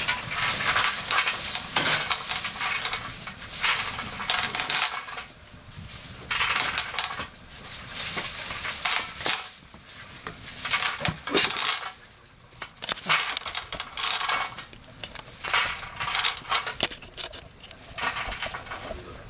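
Fire in a stainless-steel wood gas camp stove crackling and hissing in irregular bursts, with a few sharp clicks.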